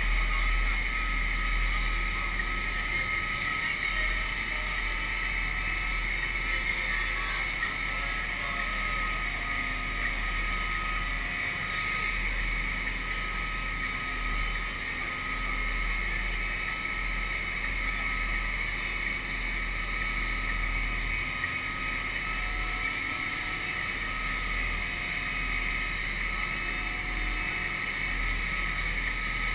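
Amphibious truck under way on water: a steady engine drone with a thin constant whine, mixed with water rushing and splashing along the hull.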